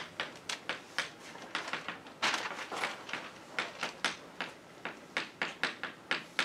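Chalk tapping and scraping on a blackboard as words are written: a quick run of sharp taps and short strokes, with one longer scrape a little over two seconds in.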